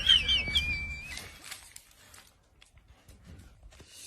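A dog, likely the golden retriever, whines high-pitched and wavering, ending about a second in on a thin steady tone. After that there are only faint soft clicks and shuffles.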